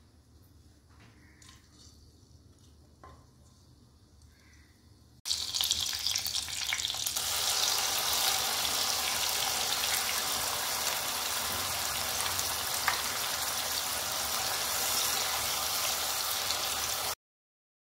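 About five seconds in, a wet ground onion, ginger, garlic and coriander paste hits hot oil with a sudden loud sizzle. It settles into steady frying while it is stirred with a wooden spatula, then cuts off suddenly near the end.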